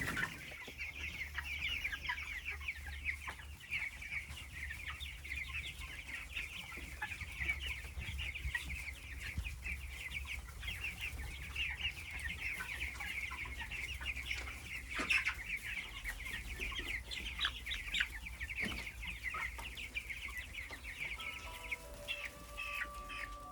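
A large flock of broiler chickens cheeping constantly in a dense, high-pitched chatter, with a few sharp clicks. Near the end the cheeping fades as music with held notes comes in.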